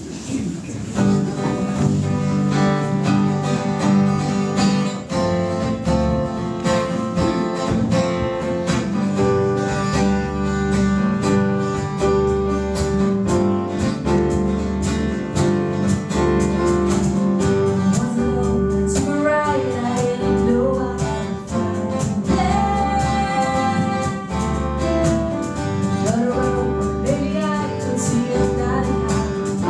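Live band music starting about a second in: guitar and bass playing held chords over a steady pulsing beat, with a singing voice coming in during the second half.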